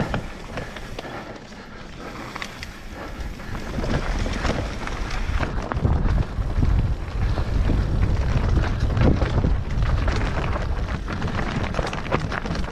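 Mountain bike riding down a rough, rooty trail, with many short rattles and knocks from the bike and wind buffeting the microphone. The wind rumble grows much louder from about four seconds in as the bike gathers speed.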